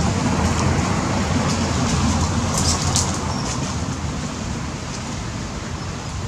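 A steady low rumbling noise that eases slightly toward the end, with a few brief high-pitched sounds about two and a half to three seconds in.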